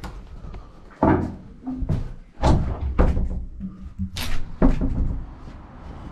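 A series of irregular knocks and thumps, about six in a few seconds, the sharpest one about four seconds in.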